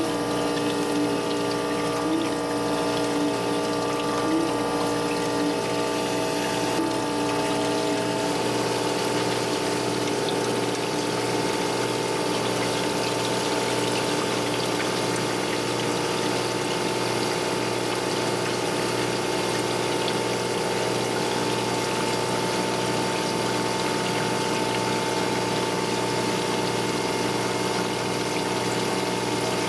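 Surface grinder running with flood coolant spraying against the wheel: a steady motor and spindle hum over the hiss and splash of coolant. The hum's pitch pattern shifts about eight seconds in.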